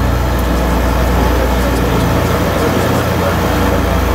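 Zeppelin NT airship's piston engines and propellers running steadily, heard inside the passenger gondola as a loud, even drone with a deep hum.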